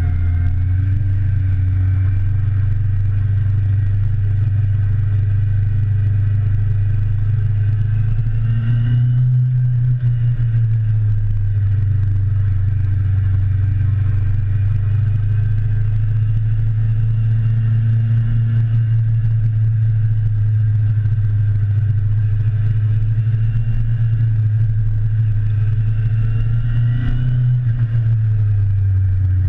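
Motorcycle engine running steadily under way, a low drone whose revs rise briefly about nine seconds in and again near the end.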